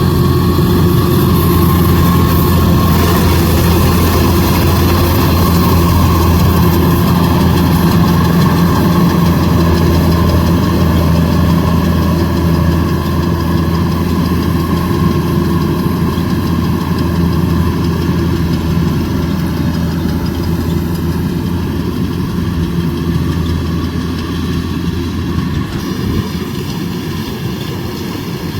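Kubota DC105X combine harvester's diesel engine running steadily at a constant speed, gradually growing a little quieter over the second half.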